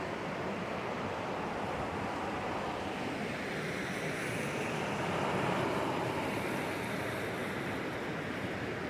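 Steady rushing of high wind mixed with rough, fast-moving water, swelling about five seconds in and easing again.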